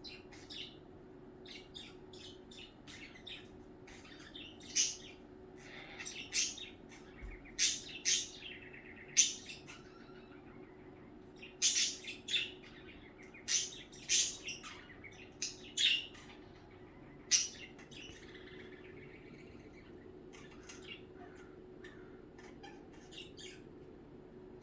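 Pet budgerigars chirping in short, sharp calls, a busy run of them through the middle, thinning out near the end.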